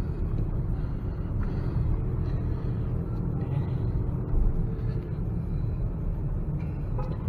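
Steady low rumble of a diesel car's engine and tyres, heard from inside the cabin while driving.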